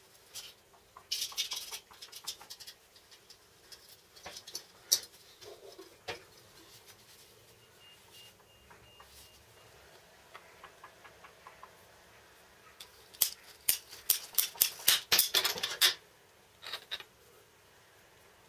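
Scattered clinks and short rattles of small steel parts being fitted together, then, in the second half, a ratchet plastic-pipe cutter clicking rapidly for about three seconds as it cuts through a white plastic tube, the loudest part, with a last pair of clicks just after.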